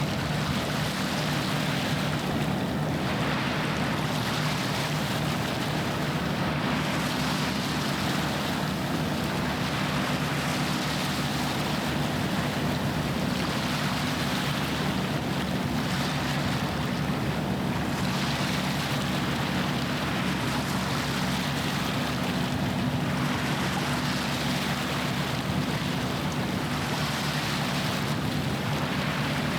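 Steady low drone of a passing ship's engine, with water washing against the shore in swells every few seconds.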